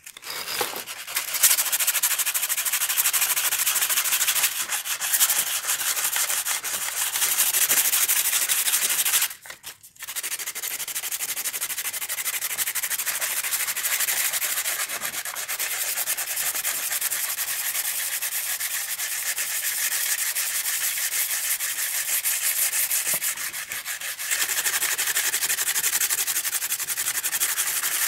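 Sandpaper rubbed by hand back and forth on weathered wood, a steady scratchy rasp, briefly stopping about ten seconds in and getting louder near the end.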